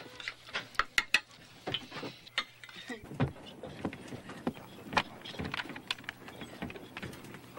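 Cutlery clinking against plates at a dinner table for the first second or so, then scattered sharp knocks and clicks.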